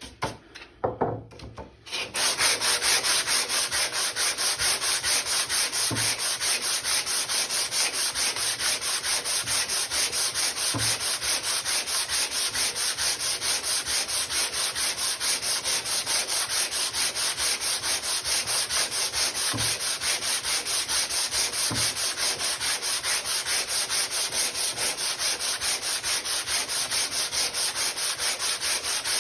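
Hand plane's metal sole being lapped flat, pushed back and forth on coarse 80-grit sandpaper in quick, even strokes, a steady rasping scrub that starts about two seconds in after a few light knocks.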